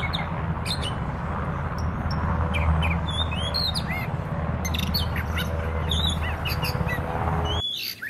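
Two UH-60 Black Hawk helicopters flying low: a steady, low rotor and turbine rumble that stops abruptly near the end. Small birds chirp over it throughout.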